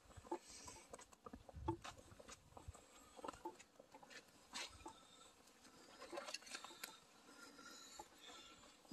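Faint footsteps over wet moss, dead leaves and twigs: soft irregular steps with small rustles and snaps.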